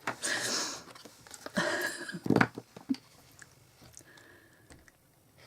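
Cardstock being handled on a craft table: two short rustling scrapes of card, then a sharp tap about two seconds in.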